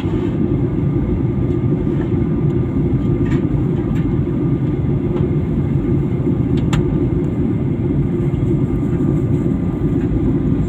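Airliner cabin noise in flight: a steady low rumble of engines and airflow, with a faint constant hum and a couple of faint clicks.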